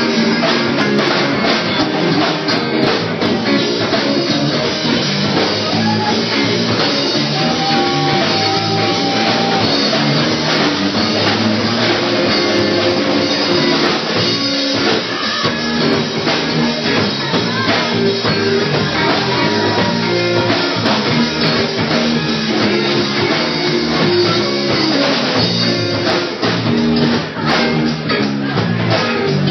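Live rock band playing: electric guitars over a drum kit, heard from the audience floor of a small club.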